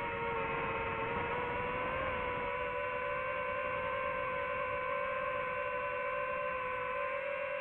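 Quadcopter drone's motors and propellers giving a steady, high whining hum, its pitch stepping up slightly about two seconds in.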